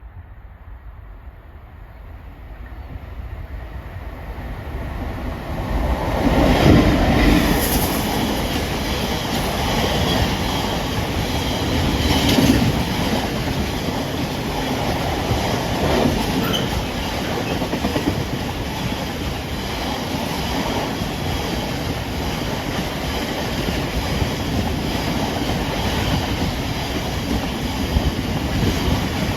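A train approaching and passing close by on the rails: its noise grows steadily louder over the first six seconds, then keeps on evenly as the train runs past, with a few brief louder moments.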